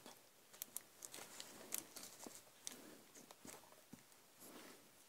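Near silence with faint, scattered small clicks and rustles of paper craft pieces and embellishments being handled on a work table.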